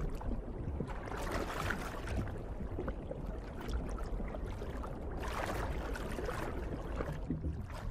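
Underwater water ambience: a steady rushing, gurgling wash of water that swells twice.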